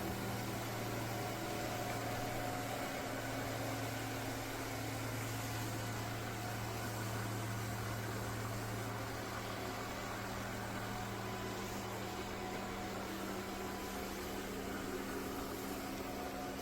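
ECOVACS Deebot X9 Pro Omni robot vacuum-mop running: a steady whirring of motor and fan with a low hum and a few fixed tones. The lowest hum weakens a little in the second half.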